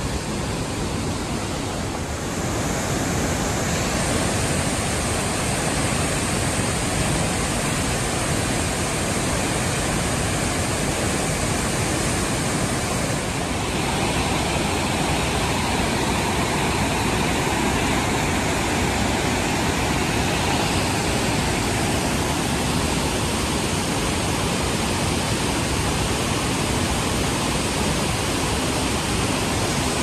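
Rushing water from Inukai Falls and the swollen, rocky river below it: a loud, steady, even noise that shifts slightly in character a couple of times.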